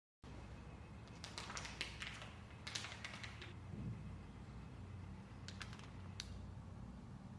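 Soft clicks and taps in short clusters as a plastic spatula cuts a block of butter into chunks on aluminium foil, over a faint steady low hum.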